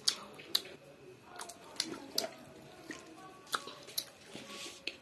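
A child eating close to the microphone: chewing with wet, smacking mouth clicks coming irregularly, about every half second to a second.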